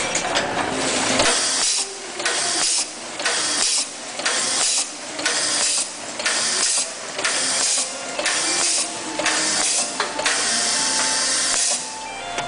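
Plastic diaper bag making machine running through its cycle, with a burst of hissing air about once a second.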